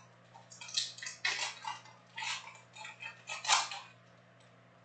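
Foil wrapper of a trading card pack being torn open and peeled off the cards, crinkling in a series of short crackles that stop about four seconds in.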